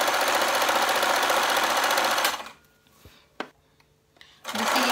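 Sewing machine stitching at speed along the piping seam of a sleeve. It stops a little before halfway, a single click comes in the pause, and it starts stitching again near the end.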